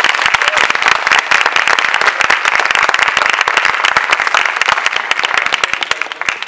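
Audience applauding, a dense loud clapping that begins to die away near the end.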